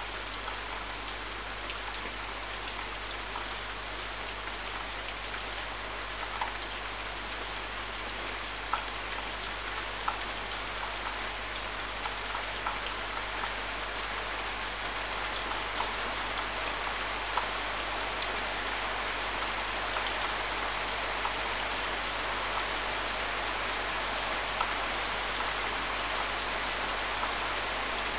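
Steady rain falling, an even hiss with scattered sharp ticks of single drops landing close by, growing a little heavier toward the end.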